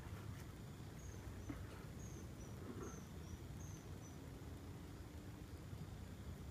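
A faint series of about eight short, high chirps, roughly two a second, from a small animal, over a low steady outdoor rumble.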